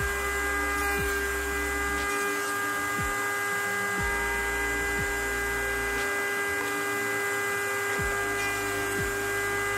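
Router spinning in a router table, a steady high motor whine with no change in speed.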